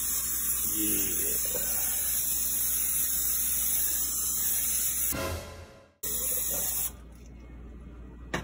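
Aerosol cooking-oil spray can hissing in a long burst, fading out about five seconds in, then a second short burst about six seconds in.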